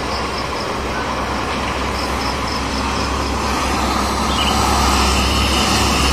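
Two intercity buses approaching along the road, their engine rumble and tyre noise building steadily louder as they draw near.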